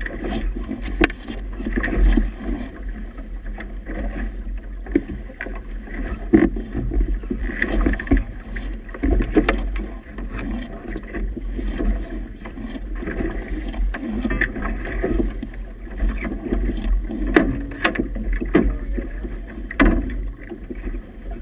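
Wind buffeting the microphone over choppy water slapping and splashing against a small boat's hull, in irregular surges with sharp slaps every second or two.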